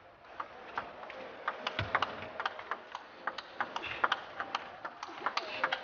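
Table tennis rally: the ball clicking off the rackets and the table in quick alternation, about three or four sharp hits a second.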